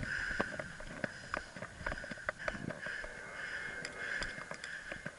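Scattered sharp cracks from airsoft pistols being fired in a duel, irregularly spaced and fainter than the volley just before, over a steady high-pitched hum.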